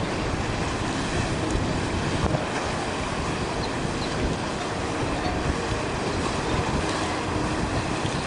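Steady wind noise buffeting the microphone: an even rushing hiss with low, fluttering rumble.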